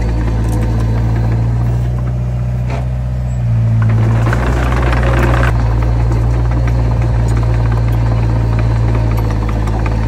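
Heavy diesel engine of earthmoving machinery running steadily, with a louder rasping noise for about two seconds near the middle.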